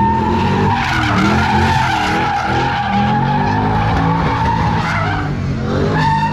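Car spinning donuts at a street sideshow: its tyres screech steadily while the engine revs up and down beneath, the pitch of both wavering as the car circles.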